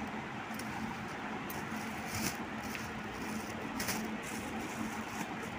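Thin plastic carry bag rustling and crinkling as a hand moves okra about inside it, with a few sharper crackles, over a steady background hiss.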